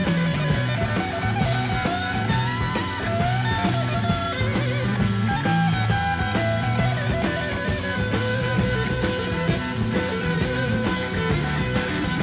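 Rock background music with a wavering guitar melody over a steady beat.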